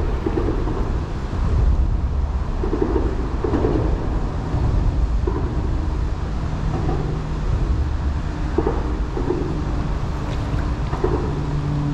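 Steady low rumble in a concrete lock chamber, with short mid-pitched sounds every second or so and a faint steady hum that comes and goes in the second half.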